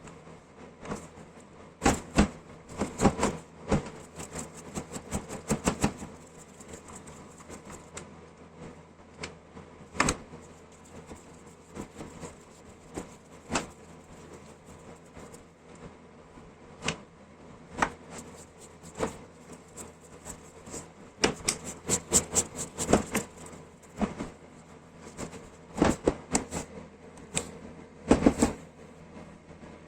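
Irregular clicks and knocks of tools and parts being handled, in clusters of quick taps and in single sharp knocks, over a steady low hum.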